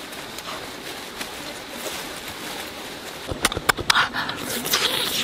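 Close-up eating sounds: wet chewing and lip smacking, with a cluster of sharp mouth smacks about three and a half seconds in.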